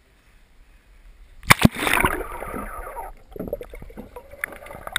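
Two sharp knocks about one and a half seconds in, followed by pond water splashing and sloshing, with smaller gurgles and clicks.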